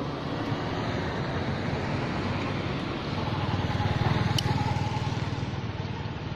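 Road traffic: a passing vehicle's engine swells to its loudest about two-thirds of the way through, then fades. There is a single sharp click near the loudest point.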